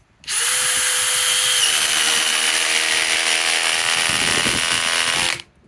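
DeWalt DCF870 hydraulic (oil-pulse) impact driver running on a cold 5 Ah PowerStack battery, driving a fastener in below-freezing cold for about five seconds with a steady whine. It starts and stops abruptly, and its pitch dips briefly a bit under two seconds in.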